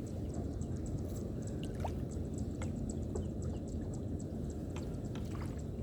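Outdoor background: a steady low rumble with a faint, rapid high-pitched ticking and a few small clicks.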